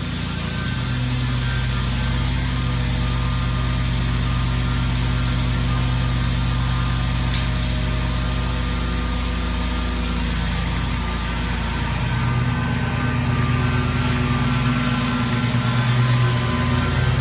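Toro Proline 36-inch walk-behind mower engine running steadily, its note shifting about ten seconds in and then settling again.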